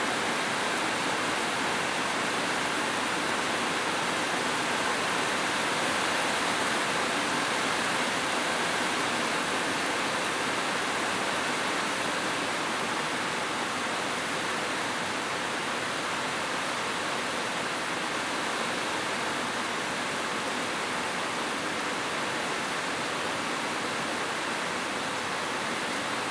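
Heavy rain pouring steadily onto corrugated metal roofs: a dense, even hiss.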